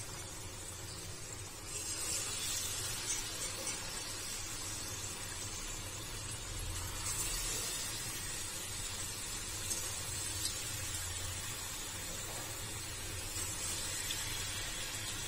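Batter-coated potato slices deep-frying in hot refined oil, sizzling steadily; the sizzle gets louder about two seconds in as more slices go into the pan.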